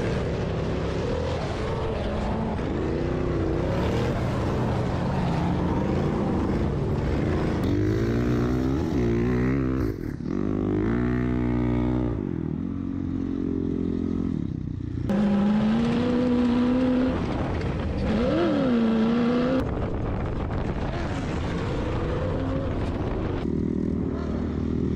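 Off-road vehicle engines revving and running hard, their pitch rising and falling repeatedly, with abrupt changes in the sound about ten, twelve and fifteen seconds in as different vehicles take over.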